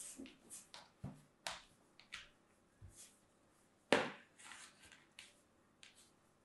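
Hands patting and pressing kinetic sand flat in a plastic tray: a scatter of soft pats, rubs and small clicks, with one sharper knock about four seconds in.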